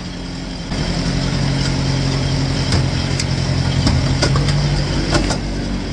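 1954 Ford Jubilee tractor's four-cylinder gasoline engine running steadily as the tractor is driven, getting louder about a second in. A few sharp clicks sound over the engine.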